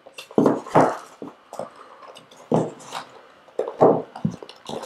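Black paperboard speaker box and its moulded insert being handled: irregular scrapes, rubs and light knocks of cardboard sliding against cardboard, the loudest about a second in and again near the four-second mark.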